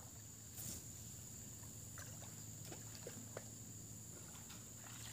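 Faint outdoor ambience: a steady high-pitched whine over a low hum, with a few small scattered ticks and clicks.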